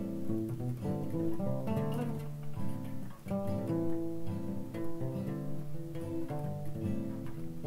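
Taylor 110 steel-string acoustic guitar playing a tune, plucked notes over a moving bass line.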